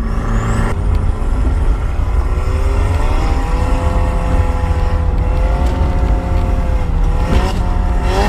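Turbocharged Mazda Miata 1.6-litre four-cylinder engine pulling hard through a gear. Its pitch climbs and then holds steady, under a heavy rumble of wind in the open cabin.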